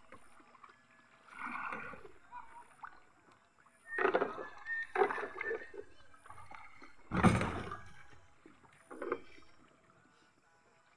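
Water splashing and sloshing around a small boat, with knocks and bumps of plastic buckets and jerry cans being handled and filled. The loudest is a thump about seven seconds in.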